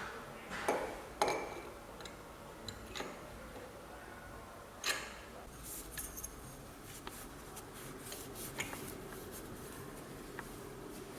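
Light metallic clicks, taps and clinks of tools and small engine parts being handled during reassembly of a motorcycle engine's top end. There are a few sharp clicks early on, one louder knock about five seconds in, and a short ringing clink about a second later.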